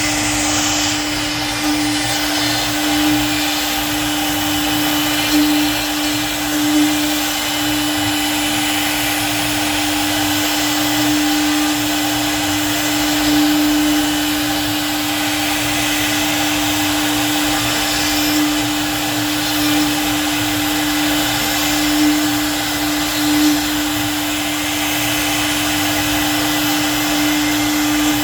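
CNC wood-carving router running steadily: a constant spindle whine over a dense hiss, with brief swells in level now and then.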